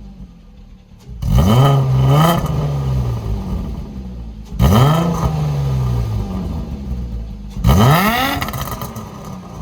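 Naturally aspirated 2.8-litre six-cylinder car engine blipped three times from idle through a homemade exhaust whose original silencer has been emptied out. Each rev jumps up sharply and sinks back to a low idle.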